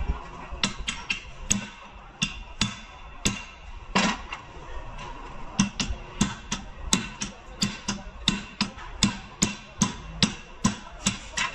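A hammer striking metal over and over, about two to three blows a second, each blow ringing briefly. There is a short pause about four seconds in, then a quicker, steady run of blows.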